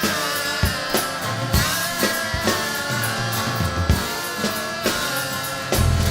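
Stoner/doom rock band recording: a drum kit hitting under guitar lines that bend in pitch, over bass notes. The low end gets heavier and louder near the end.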